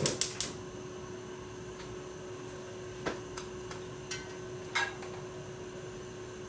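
Kitchen handling noises: a quick run of about six sharp clicks right at the start, then three scattered light knocks, over a steady low appliance hum.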